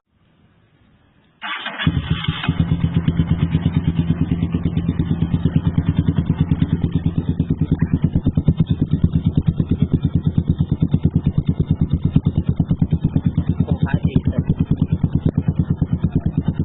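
GPX Demon 150GR single-cylinder motorcycle engine through a modified aftermarket exhaust, starting up about a second and a half in, then idling steadily with an even, rapid exhaust pulse.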